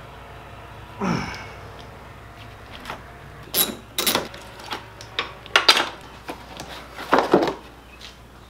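Metal battery hold-down parts being worked free by hand in a car's engine bay: a short falling scrape about a second in, then several sharp clanks and knocks.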